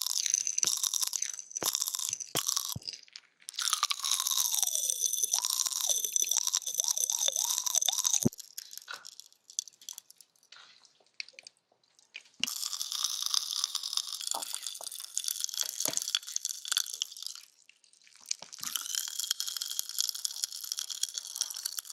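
Dense crunching crackle in three long stretches with short pauses between them, after a few scattered clicks at the start.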